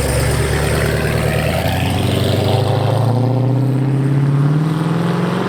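Car engine running, its pitch climbing slowly over the last couple of seconds as the revs rise.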